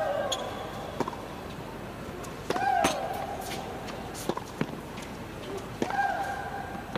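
Tennis rally: racket strokes on the ball about every one and a half seconds, with a player's long shriek on every other shot, three times about three seconds apart, each a held cry that slides down in pitch.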